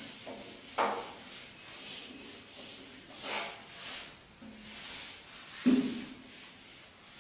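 Handheld eraser wiping marker off a whiteboard in repeated swishing strokes, with two sharper thumps of the eraser on the board, about a second in and near the end, the later one the loudest.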